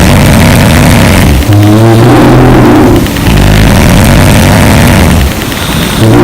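Loud snoring from sleeping women: rough, droning snores running one into the next, with brief dips between breaths about a second and a half in, about three seconds in, and near the end.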